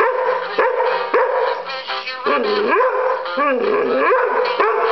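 A singing plush Christmas decoration plays its tinny electronic tune while a dog barks and howls at it. There are sharp barks early on and two longer wavering howls in the middle.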